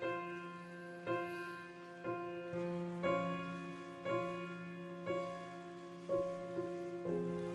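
Slow solo piano music, a chord struck about once a second and left to ring out before the next.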